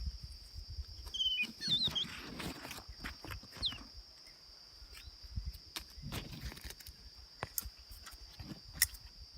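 A small bird giving a few short, wavering chirps about a second in and a falling chirp a little later, over a steady high-pitched drone and scattered clicks and rustles.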